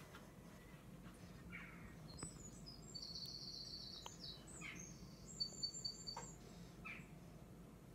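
Small birds chirping and trilling from the soundtrack of a television bird video, heard faintly over a steady low hum. A quick high trill comes about three seconds in, and a run of short high chirps follows around the middle.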